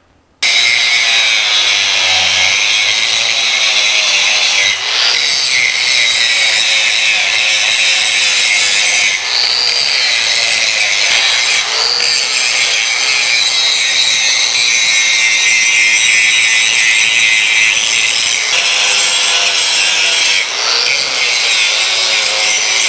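Angle grinder grinding rust off a rusty metal rerailing frog to clean it ahead of weld build-up. The steady, harsh grinding starts suddenly about half a second in and runs on with a few brief dips as the disc eases off the metal.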